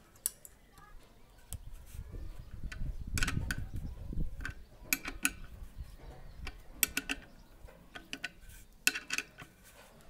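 Irregular sharp metallic clicks and clinks of nuts, washers and a ring spanner on the steel mounting flange of an electric geyser's new heating element as it is bolted onto the tank. A low dull handling noise against the steel tank runs from about one and a half to five seconds in.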